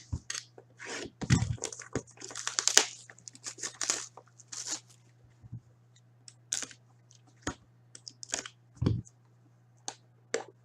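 A sports card pack wrapper being torn open and crinkled, with a burst of scratchy tearing over the first few seconds, then a few scattered clicks and taps as the cards are handled.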